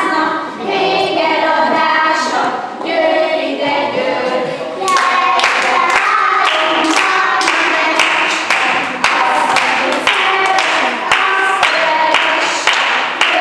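A group of young children singing a song unaccompanied; about five seconds in, steady hand clapping in time joins the singing, about two claps a second.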